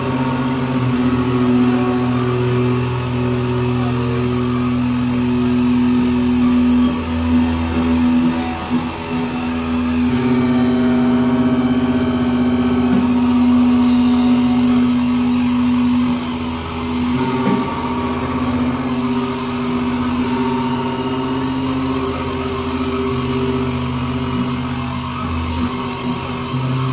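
Live noise-rock performance: a dense wall of droning, distorted electric guitar holding one steady low note, with a lower layer that shifts every few seconds and a haze of noise above.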